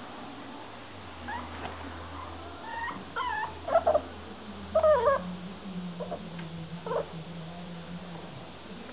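Staffordshire bull terrier puppy whining, a string of short high-pitched cries that rise and fall, loudest in the middle.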